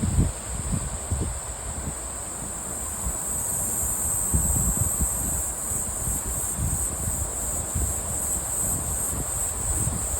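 Mountain wind buffeting the microphone in uneven low gusts, over a steady high-pitched insect chorus that grows louder a few seconds in.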